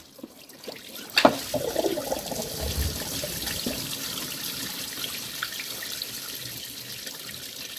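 Engine coolant pouring and splashing out of the Audi 2.0 TDI engine where the water pump is being removed, a steady running stream. There is a sharp knock about a second in, and the flow eases slowly toward the end.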